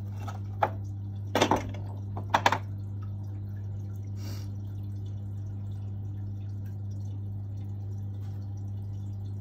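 Water dripping and splashing lightly into a tub: a few drips in the first three seconds, over a steady low hum.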